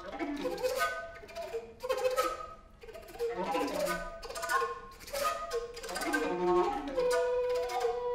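Trio of recorders playing contemporary music: phrases of short overlapping notes with sharp, breathy attacks, separated by brief dips, and one steady held tone near the end.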